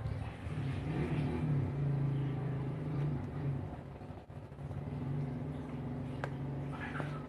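A steady low engine hum, with a few faint higher sounds near the end.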